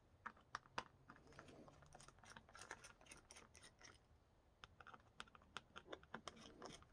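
Faint, irregular light clicks and taps from handling the foam RC-plane elevator and its small hardware.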